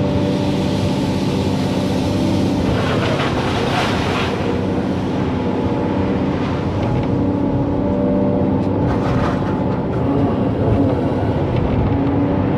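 Excavator's diesel engine running steadily under load, with two short bursts of rushing, scraping noise on top, about three seconds in and again about nine seconds in.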